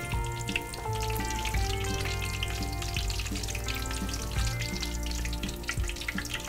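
Tofu pieces frying in hot oil in a wok, sizzling steadily with many small crackles.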